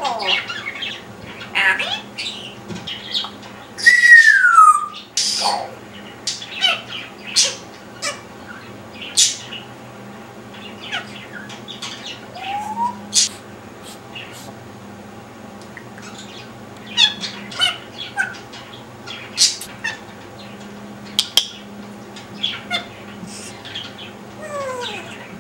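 Timneh African grey parrot making a run of sharp clicks, short squawks and chirps, with a loud falling whistle about four seconds in and shorter whistle glides later.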